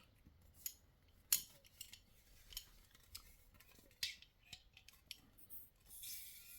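Faint scattered clicks and taps of an airsoft gas-pistol magazine and gas can being handled while charging it with red gas, then a short hiss near the end.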